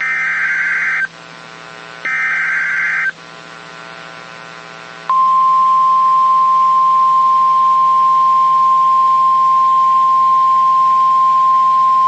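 NOAA Weather Radio receiver sounding an alert: two short bursts of screeching SAME digital header data, a second apart. Then, about five seconds in, the steady 1050 Hz warning alarm tone comes on and holds. This is the emergency alert that opens a warning broadcast, here a Flash Flood Warning.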